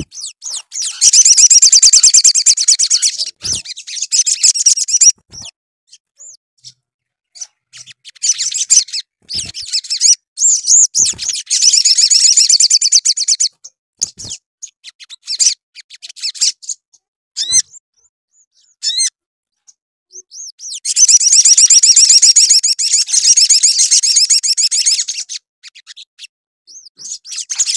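Male olive-backed sunbird in full song: three long bursts of very fast, high trilling a few seconds each, with short chirps between. It is the kind of song that provokes rival sunbirds.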